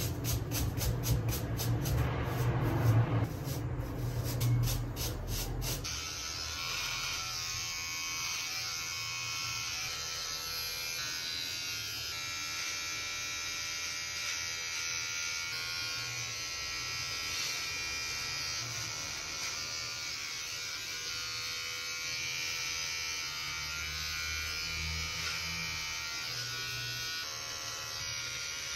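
Handheld electric shaver running against the cheek and beard. It is louder and pulsing for the first six seconds or so, then changes abruptly to a steady, higher buzz.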